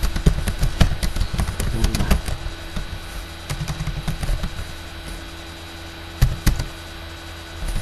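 Typing on a computer keyboard: irregular key clicks, sometimes in quick runs and sometimes a few spaced taps, over a low background hum.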